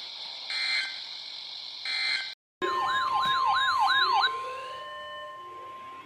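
Weather radio broadcast: two short bursts of digital data tones, the end-of-message code of the marine warning. After a brief break a siren yelps fast over the steady 1050 Hz NOAA Weather Radio alert tone, then gives way to slower rising wails.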